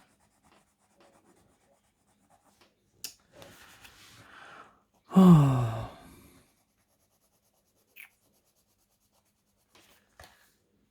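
Coloured pencil scratching briefly across paper, a soft scribble lasting just over a second, with a few light clicks of pencils being handled and put down.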